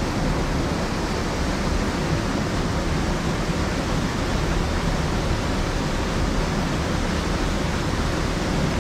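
Steady rush of creek water pouring over a small cascade into a rock pool.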